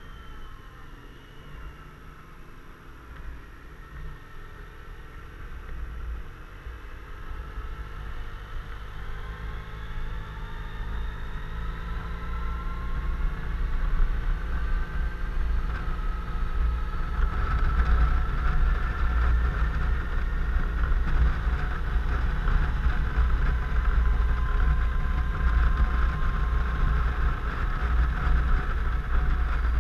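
Suzuki Burgman 650 maxi-scooter under way: its engine and drive whine slowly rise in pitch as it picks up speed, over a low rumble of wind buffeting. The whole sound grows louder over the first half, then holds steady.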